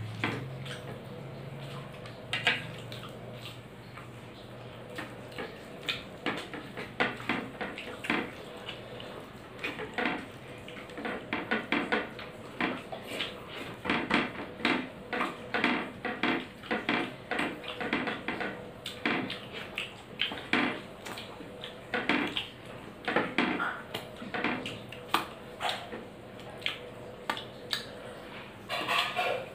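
A person eating rice and curry by hand from a plate: many short, irregular clicks and taps of fingers against the plate, coming thicker in the second half.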